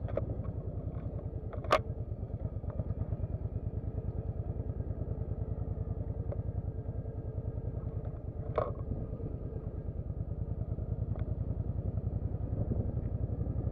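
Motorcycle engine running at low road speed, its exhaust a fast, steady low pulsing. Two sharp clicks cut through it, one near the start and one a little past the middle.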